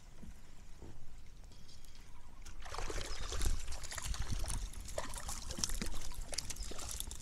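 Water splashing and dripping, starting about three seconds in and thick with small splashy ticks, as a hooked crappie is brought to the side of a kayak.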